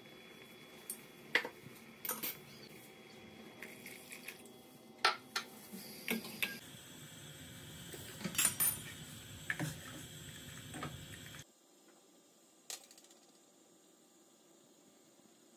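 Metal spoon clinking against a stainless steel saucepan as tea leaves are added and the chai is handled, a dozen or so sharp clinks spread over the first part, over a faint simmering hiss that cuts off abruptly about three-quarters of the way through.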